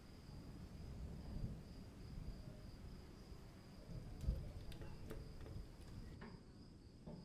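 Small metal parts of a miniature model bicycle being handled and fitted by hand: faint rubbing with a few light clicks about four and five seconds in, over a steady high-pitched tone.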